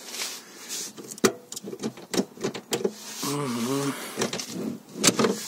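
Handling noise: a run of irregular clicks, taps and rustles as a hand moves over a car's interior trim and floor mat, with a brief murmured voice a little past halfway.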